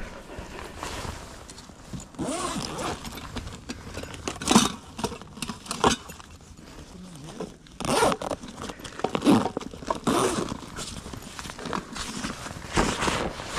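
Zipper on a fabric backpack pulled in several short, irregular strokes, with the pack's fabric rustling as it is handled.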